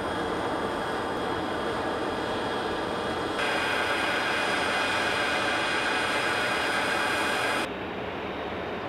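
Airport apron noise: jet aircraft engines running, a steady rush with high whining tones. About three seconds in it becomes louder and brighter with more whine, then drops back to a duller rush near the end.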